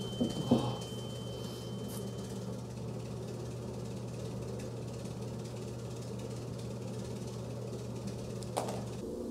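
Steady low hum with a thin high tone over it that stops about two and a half seconds in; a couple of soft knocks just after the start and another near the end.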